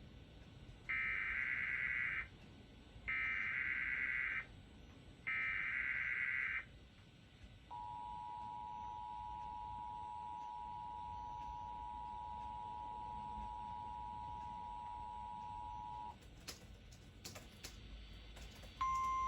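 Emergency Alert System alert: three bursts of warbling SAME header data tones about a second apart, then the two-tone EAS attention signal held for about eight seconds. After a few clicks, a single steady tone starts near the end: a NOAA Weather Radio alert tone opening the relayed warning.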